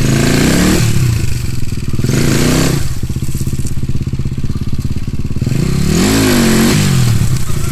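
Off-road vehicle engine idling and revved up and back down three times. The third rev is the longest.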